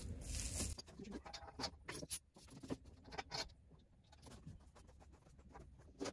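Steel lifting chain being handled and hooked up, giving a scatter of faint, irregular metallic clinks and rattles.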